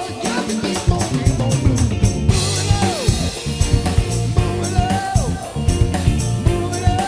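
Live rock band playing an instrumental stretch, with an acoustic drum kit driving the beat on bass drum, snare and cymbals under keyboards and electric guitar, and notes bending up and down over the top.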